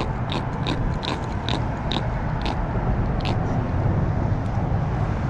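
Steady low rumble of wind and water on the microphone beside open sea, with a run of sharp, irregular clicks, about two a second, that stop after about three seconds.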